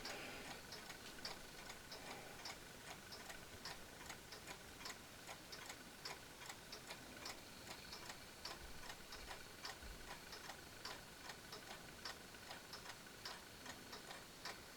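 Faint ticking of a mechanical clock, a few ticks a second.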